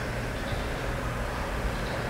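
Low, steady rumble of a New York City subway train approaching from far down the tunnel.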